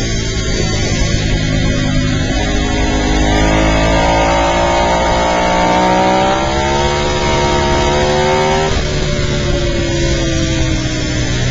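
Onboard sound of a Ducati superbike's V-twin engine on track: the engine note climbs steadily under acceleration for several seconds, then drops abruptly at about nine seconds in as the throttle closes, and falls away as the bike slows, over a constant rush of wind and road noise.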